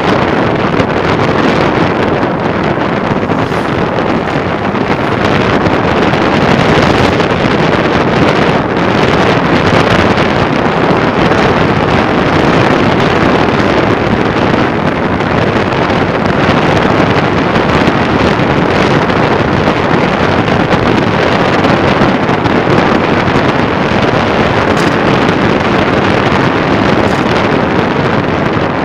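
Loud, steady wind rush buffeting the microphone of a camera travelling along a road on a moving vehicle, covering any engine sound.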